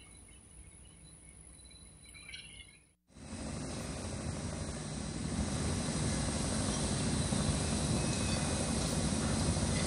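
Faint background at first. After a brief dropout about three seconds in, a steady rumbling noise slowly grows louder.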